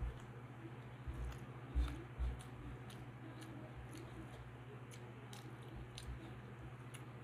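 Close-up eating sounds: chewing a mouthful of rice and vegetables, with short squishing clicks as fingers mix soft rice on a metal plate. A few low thumps come about one to two and a half seconds in, over a steady low hum.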